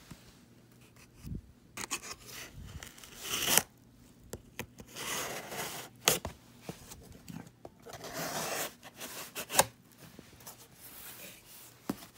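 Cardboard mailer box being cut open with a knife and pulled apart: irregular scraping, tearing and rustling of cardboard, with a few sharp clicks.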